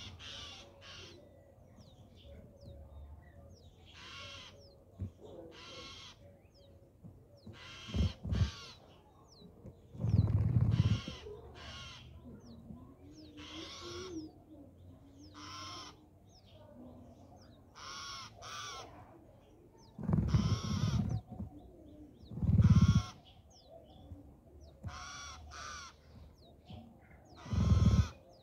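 Crows cawing repeatedly, short harsh calls every second or few, several of them much louder and closer, with a low rumble beneath.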